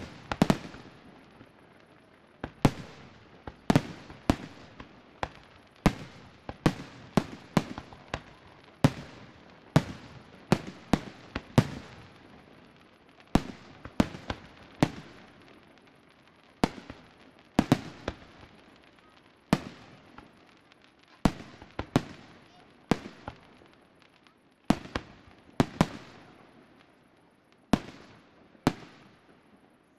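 Fireworks display: aerial shells bursting one after another, sharp bangs at roughly one a second, each with an echoing tail. The bangs stop about a second before the end.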